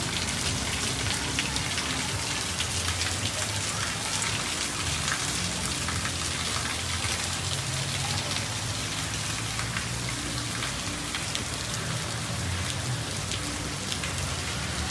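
Heavy rain falling steadily on a paved street, a dense, even patter of drops.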